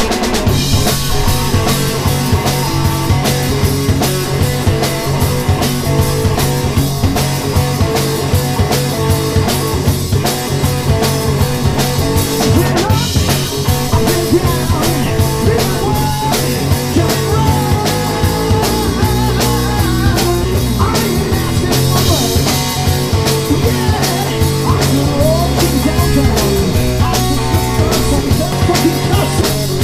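Live rock band playing: electric guitar, electric bass and drum kit keeping a steady beat, with a man singing. The bass line moves lower about two-thirds of the way through.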